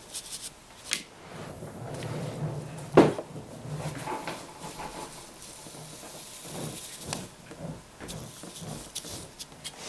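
Marker pen scraping along a metal ruler on cardboard, with rubbing and shuffling as the board and ruler are moved on a tabletop. One sharp knock about three seconds in, and lighter knocks near one second and seven seconds.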